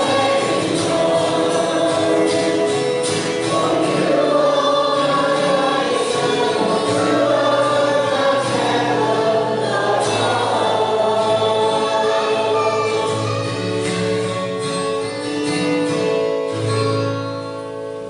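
A choir singing a hymn with instrumental accompaniment, the final chord dying away near the end.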